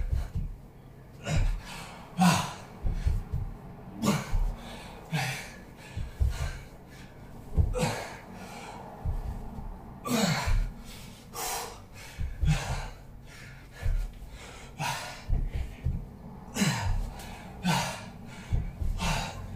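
A man breathing hard from exertion while doing walkouts with press-ups, with a sharp, forceful exhalation about once a second. Soft low thumps come between the breaths.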